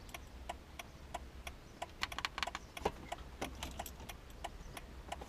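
Irregular light clicks and taps, several a second, from hands working on a car radio and its wiring plugs in the dashboard.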